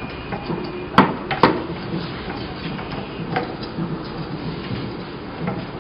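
Handling noise as a new silicone cover is pressed hard into the plate of a 3D vacuum heat press: two sharp knocks about a second in and a fainter one later, over steady background noise.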